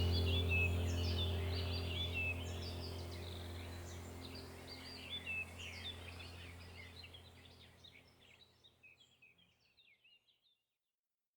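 Birds chirping over a steady low hum, both fading out gradually to silence shortly before the end.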